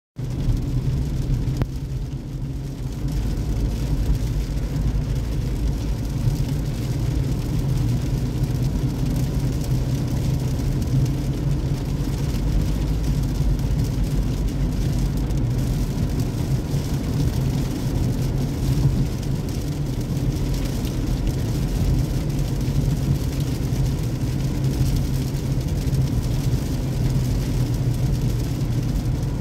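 Steady road noise inside a moving car's cabin on a rain-wet road: a low, even rumble of engine and tyres with a fainter hiss over it.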